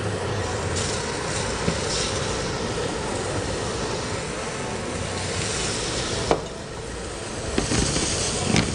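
Zucchini slices sizzling as they fry in a hot pan, with two sharp knocks of a utensil against the pan, one about six seconds in and one near the end.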